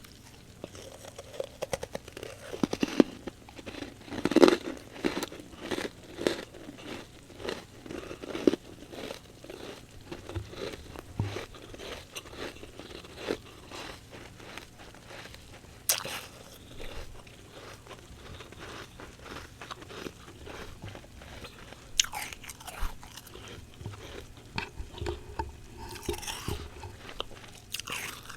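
Close-up crunching and chewing of a mouthful of humidifier frost, a quick run of crisp crunches and bites, loudest about four seconds in.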